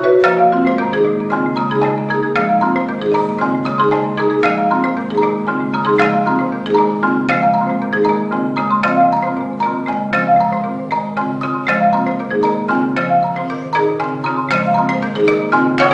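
Percussion ensemble playing mallet instruments led by marimba: fast runs of struck notes over a steadier line of lower notes.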